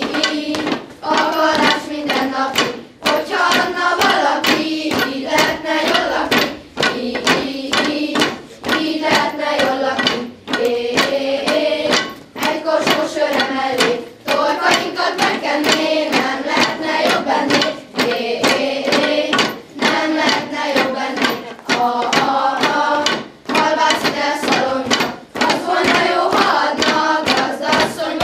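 A group of children singing a Hungarian shepherds' folk song together, over a steady beat of knocks from wooden shepherds' staffs struck on a tiled floor.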